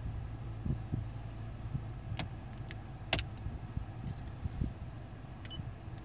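Steady low hum of a vehicle idling, heard from inside the cab, with a few light, sharp clicks about two and three seconds in.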